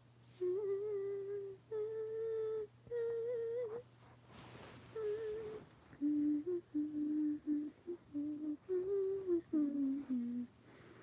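A girl humming a tune through closed lips: three long held notes, a short breath, then a run of shorter, lower notes that step up and down.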